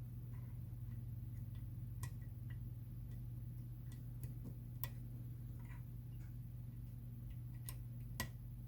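Faint, irregular small clicks of a lever lock pick working the levers inside an ERA 5-lever padlock, over a steady low hum.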